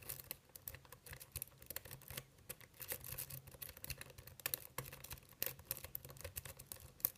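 A City rake being scrubbed in and out of a cheap six-pin Schlosser Technik pin-tumbler lock under tension: faint, rapid, irregular clicking and scraping of the rake over the pins.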